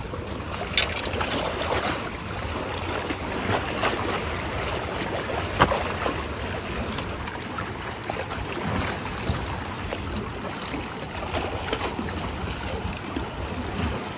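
Wind buffeting the microphone over sea waves washing against shore rocks, with a low steady rumble and a few sharp clicks and taps.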